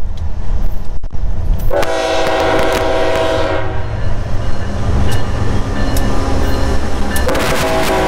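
Approaching diesel freight locomotive sounding its air horn, a chord of several steady tones. One blast of about two seconds starts about two seconds in, and a second blast starts near the end, over a steady low rumble.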